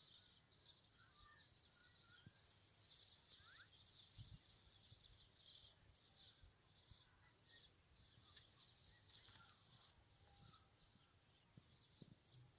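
Near silence: faint outdoor ambience, with a high chirring that pulses on and off throughout and a few scattered bird chirps.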